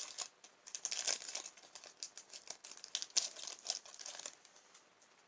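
Foil wrapper of a Pokémon booster pack crinkling and tearing as it is handled and opened by hand, a quick series of crackles that stop about four and a half seconds in.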